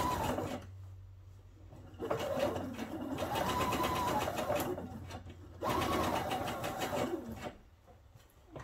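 Pfaff expression 3.5 computerized sewing machine stitching in three short runs with brief pauses between them; in each run the motor whine climbs as it speeds up and drops as it slows, while it topstitches 2 mm from the fabric's edge. It stops a little before the end.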